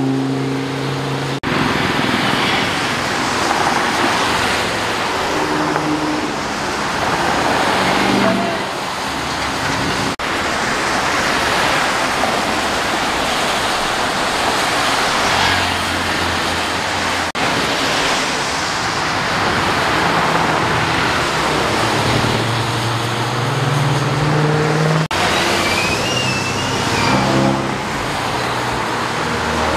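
Cars, including supercars, driving on a rain-soaked road: a steady hiss of tyres through spray, with engines rising and falling as they pass. The sound changes abruptly at a few cuts.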